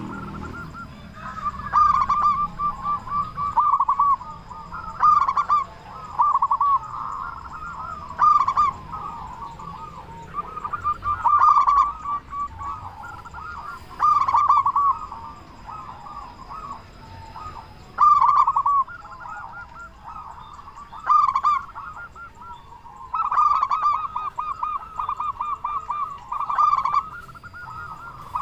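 Zebra dove (perkutut) cooing: repeated phrases of quick rolling notes, a phrase every two or three seconds.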